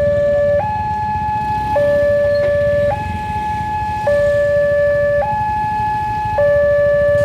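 Wantech railway level-crossing alarm sounding its two-tone electronic warning, alternating between a low and a higher tone about once a second. Only the single Wantech alarm is heard, with no second alarm overlapping it.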